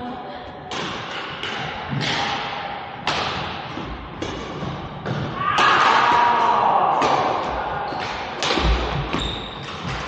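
Badminton rally: rackets striking the shuttlecock with sharp hits about every second, mixed with footfalls on the court, and a louder, drawn-out sound a little past halfway.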